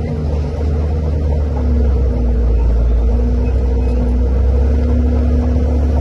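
Komatsu D41P bulldozer's diesel engine running steadily with a deep rumble, growing louder about two seconds in.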